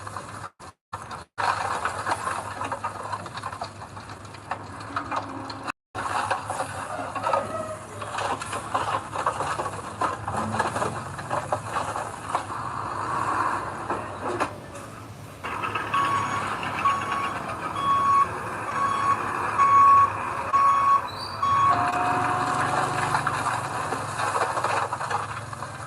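A heavy vehicle's backup alarm beeping about seven times, roughly one beep a second, over the steady rough noise of earthmoving machinery at work.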